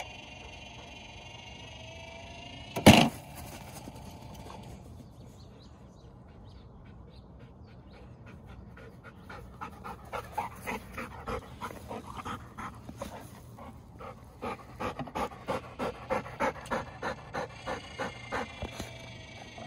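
A single sharp crack about three seconds in as the automatic ball launcher fires. From about ten seconds on, a golden retriever pants hard and fast, about three breaths a second, after a chase.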